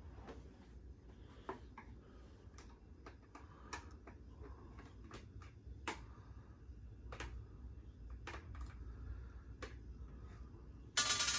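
Irregular small clicks and ticks of a screwdriver and hard plastic parts being handled as a plastic baby chair is put together, with a louder, noisy scrape right at the end.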